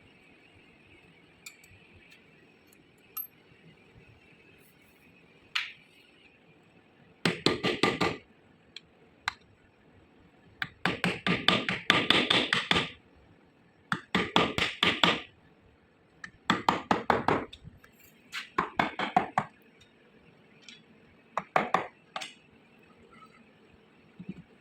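Rapid hammer taps on the metal parts of an electric motor, in six bursts of one to two seconds each with short pauses between them.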